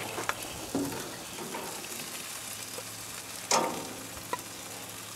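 Bacon-wrapped rhubarb sizzling steadily on a hot grill grate, with a few sharp clinks of metal tongs as pieces are lifted off into a ceramic dish, the loudest about three and a half seconds in.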